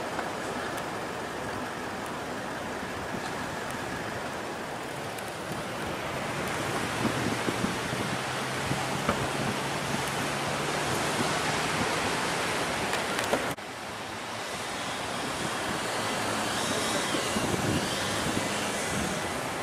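Steady rushing wind noise on the microphone, with a four-wheel drive's engine running underneath from about a third of the way in. The sound breaks off suddenly about two-thirds through and then carries on.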